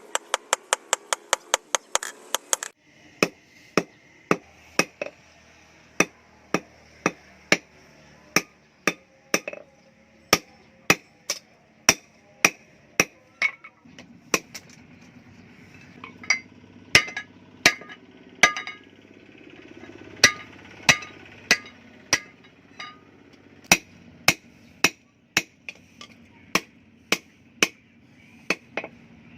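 Hammer blows on steel with a metallic ring: a quick flurry of light strikes at first, then slower, heavier blows at about one to two a second. This is typical of forging a blade.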